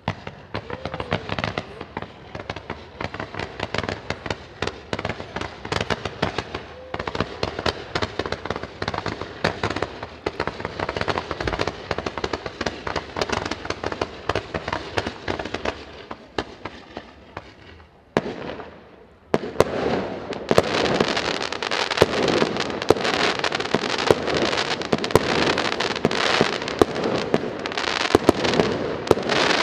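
Fireworks going off: a fast, steady stream of crackling pops that thins out after about 16 seconds, then a louder, denser crackle with sharp pops from about 19 seconds in.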